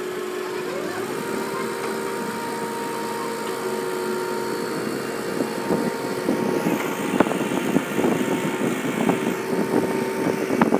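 Heavy lifting crane's diesel engine running steadily under load during a lift, with a steady whine over it. From about halfway through, irregular knocks and clanks join in.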